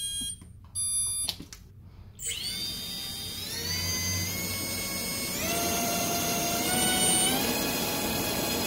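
Two short electronic beeps, then an AOKFLY RV1407 3700KV brushless motor with a Gemfan Flash 3052 propeller spins up on a 3S battery about two seconds in. Its whine steps up in pitch three times as the throttle is raised in increments.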